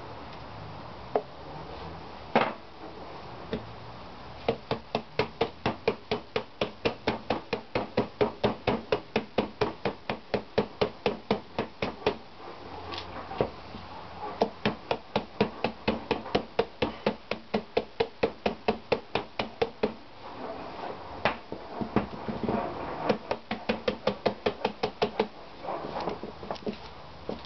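A hand tapping a plastic toner bottle, quick even knocks about five a second in runs of several seconds, to keep the toner flowing into a laser toner cartridge, with a few single harder knocks between the runs.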